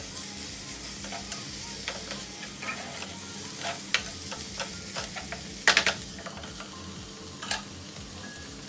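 Sliced cabbage, onion, capsicum and tomato sizzling in a hot kadai on a gas burner while a metal spatula stirs them, scraping and knocking against the pan, with a few sharper clanks, the loudest about two-thirds in.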